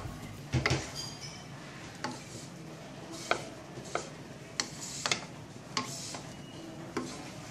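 Wooden spatula stirring fried rice in a nonstick wok, scraping and knocking against the pan in sharp, irregular taps about once a second.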